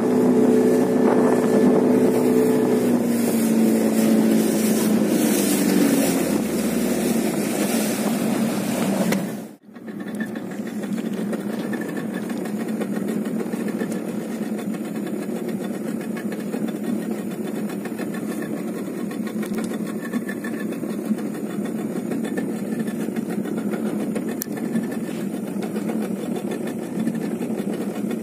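Boat engine running, its pitch falling over the first several seconds as it slows, with a rushing noise over it. After a sudden break about ten seconds in, the engine runs steadily at low speed.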